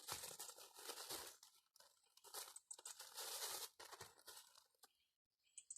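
Polythene and mylar sheeting crinkling and rustling in irregular bursts as it is handled, dying down near the end.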